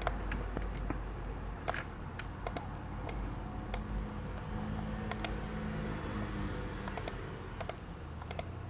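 Sparse, irregular light clicks and taps, about two or three a second, over a low steady hum.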